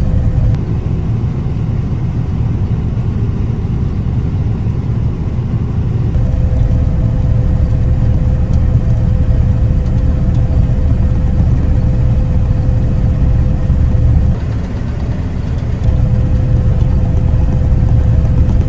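Combine harvester running steadily: a loud low rumble with a steady whine over it. The whine drops out for a few seconds near the start and briefly again later.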